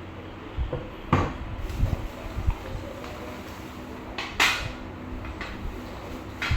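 A handful of knocks and clinks of hard objects, tools or parts being handled and set down, over a steady low hum. The sharpest clink comes about four and a half seconds in.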